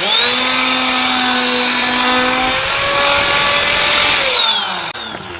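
A handheld power tool's electric motor switched on abruptly, running at speed with a high whine for about four seconds, then released and winding down, its pitch falling as it spins down.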